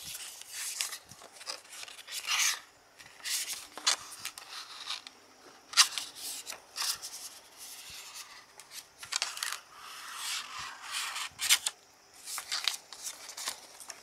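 CD booklet being slid out and its pages turned by hand: a string of papery swishes and rustles, with a couple of sharp snaps, one near the middle and one later on.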